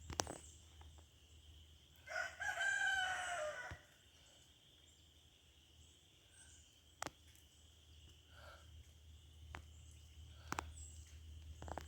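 A rooster crows once, about two seconds in, a single call of under two seconds that bends in pitch. A few faint sharp clicks follow later.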